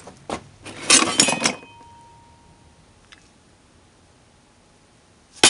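Loose metal car parts clinking and clattering as they are handled in a cardboard box. A loud burst of clinks about a second in leaves a faint ringing tone that fades slowly, then it goes quiet until another clatter near the end.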